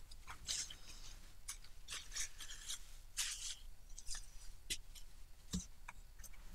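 Faint rustling and scraping of paper towels and a plastic pitcher of soap batter being handled on the table, in short scratchy strokes, with a soft thud about five and a half seconds in.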